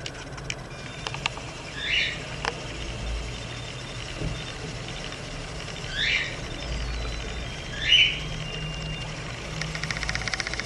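A bird calling three times, short single calls a few seconds apart, the last one the loudest, over a low steady hum.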